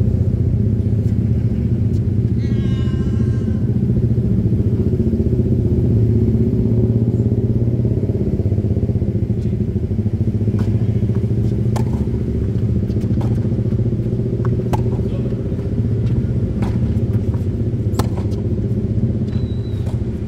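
A steady low mechanical rumble, like a motor running, throughout. Over it come the sharp pops of a tennis ball struck by rackets during a rally, heard several times in the second half.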